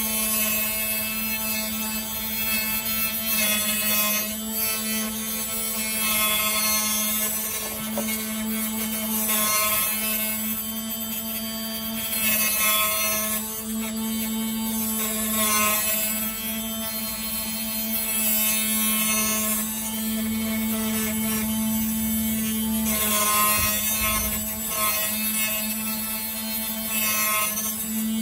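Automatic phone-screen glass cutting machine running a cut: a steady motor hum under a rasping, rubbing hiss from the cutting wire sawing through the screen glass, which swells and eases roughly every three seconds.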